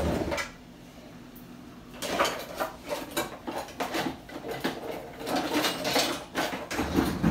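Metal kitchen utensils clattering and clinking as a kitchen drawer is rummaged through. A short burst at the start, a quieter second or so, then steady clatter from about two seconds in, loudest near the end.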